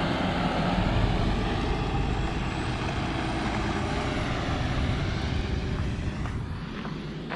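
Shuttle coach's engine pulling away and driving off, a steady rumble that fades gradually near the end as the coach draws away.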